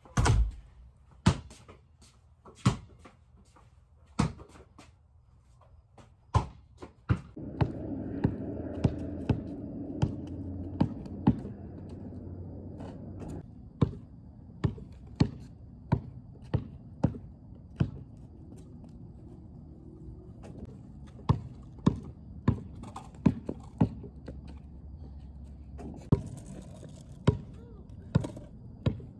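A basketball being dribbled on the driveway: sharp single bounces at an uneven pace, about one to two a second, with short gaps between runs. A steady background noise comes in about seven seconds in.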